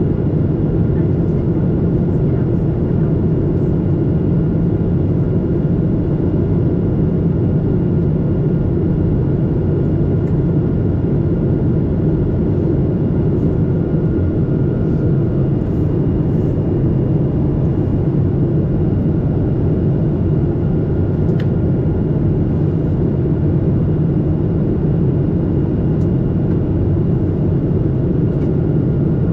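Steady in-flight cabin noise from a window seat over the wing of a Boeing 737-800: a dense, low rush of the CFM56 engines and airflow, with a faint steady high whine above it.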